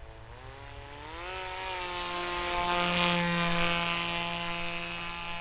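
Electric motor and propeller of an RC paramotor, a Peer XL ProUltralight unit on a 4S battery, spinning up with a rising whine and then running at a steady pitch. It grows louder toward the middle as the model passes close overhead.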